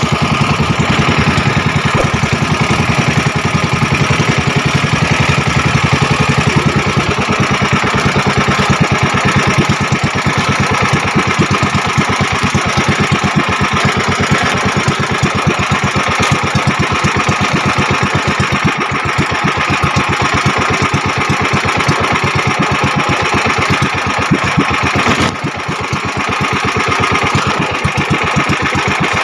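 Small boat engine running steadily with a fast, even beat, dipping briefly near the end.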